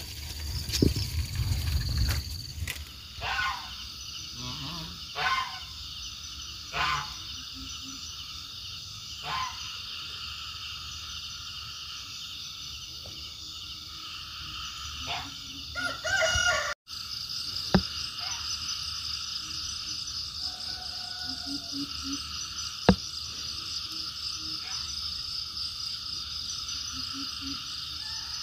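Steady outdoor chorus of frogs and insects calling, with several short fowl calls in the first ten seconds. The sound cuts out for an instant about 17 seconds in, and a few sharp clicks follow later.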